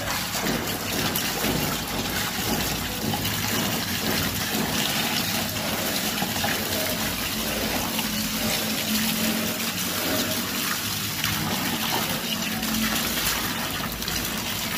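Water rushing and splashing steadily in a muddy bore hole around a PVC well pipe, as water is fed in through a hose during hand boring of a tube well.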